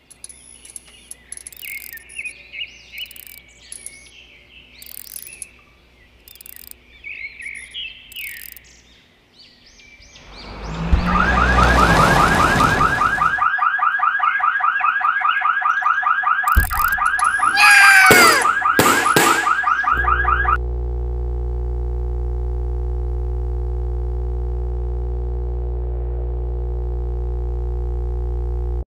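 Cartoon sound effects in sequence: birds chirping, a rising whoosh, then a fast warbling police siren with a thud and a falling whistle-like glide. It ends in a steady held drone of several tones for about eight seconds, which cuts off abruptly.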